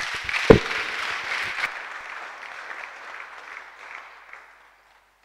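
Congregation applauding after the closing amen, the clapping thinning and dying away after about four and a half seconds. A loud low thump about half a second in.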